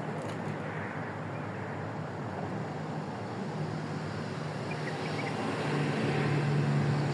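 A low, steady engine hum over a background wash of noise, growing louder in the second half and peaking just before the end.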